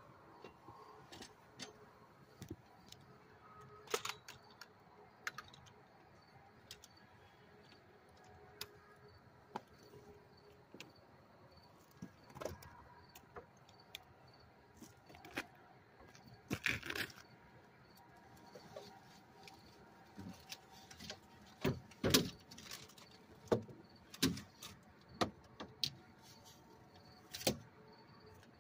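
Scattered clinks, rattles and knocks of light scrap metal being handled and picked through in a trash can, the loudest knocks coming in quick clusters in the last third.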